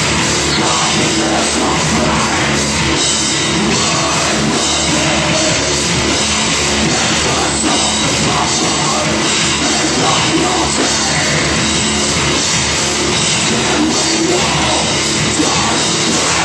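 Loud rock music with a drum kit, played without a break, in a heavy-metal style.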